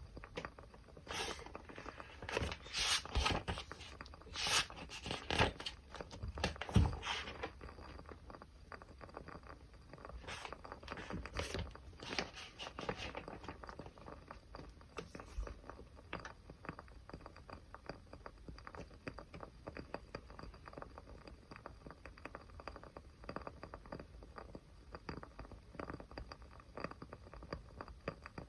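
A small fire crackling: dense sharp pops and snaps for the first several seconds, then thinner, sparser crackling.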